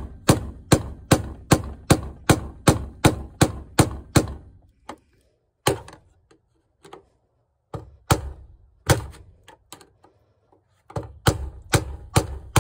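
Hammer striking a flat screwdriver set against the fuel pump lock ring of a 2004 Infiniti QX56, tapping the ring around to seat and lock it: a fast run of about a dozen sharp taps, roughly three a second, then a few single taps, then another quick run near the end. The ring is being worked past the hardest stretch of its grooves.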